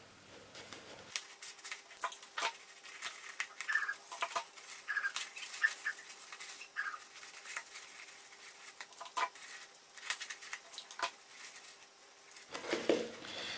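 Crepe paper and clear sticky tape being handled as fringed strips are pressed onto a paper cone: irregular crinkles, clicks and taps, with a few short squeaks.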